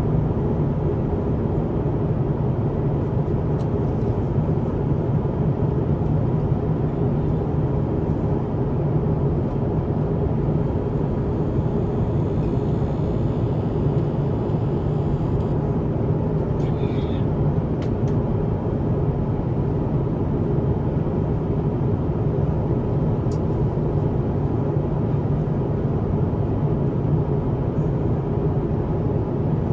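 Steady cabin noise of an Airbus A350-1000 airliner in flight: an even, low rush of airflow and engine noise that does not change.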